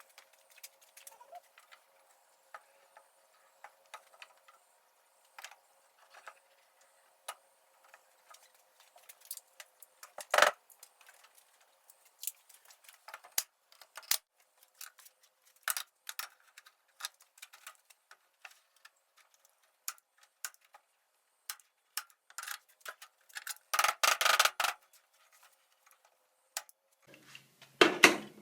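Irregular sharp metallic clicks and snaps from hand work on wire-mesh hardware cloth, with a denser clatter about three-quarters of the way through.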